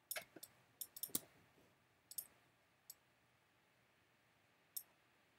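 Faint, scattered clicks of a computer mouse: a quick run of about half a dozen in the first second or so, then a few single clicks spread over the rest, with near silence between.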